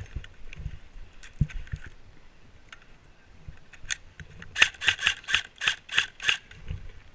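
Krytac CRB electric airsoft rifle firing: a few single shots in the first four seconds, then a quick string of about eight shots, some four a second, starting about four and a half seconds in.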